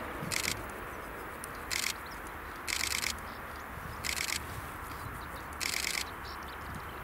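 Antonov An-26B's turboprop engines at takeoff power, heard from afar as a steady low rumble. Over it a chirping insect gives five short, high, buzzy chirps, about one every second and a half, louder than the aircraft.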